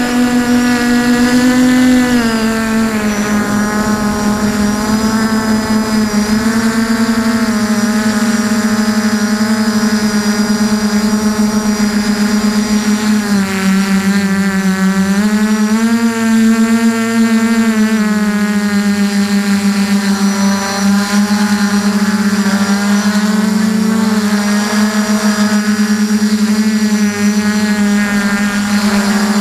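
QAV400 quadcopter's brushless motors and propellers whining steadily, recorded by a camera on the frame. The pitch drops about two seconds in, dips again around the middle and then rises as the motor speed changes.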